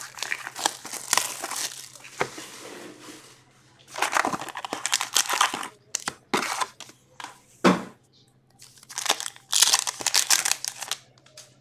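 Plastic wrappers on packs of hockey trading cards being crinkled, crumpled and torn open in four bursts of crackling, with one sharp knock about two-thirds through.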